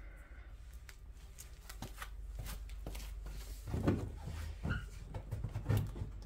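Plastic fender liner and bumper edge being flexed and handled by hand: scattered light clicks and rustles of plastic.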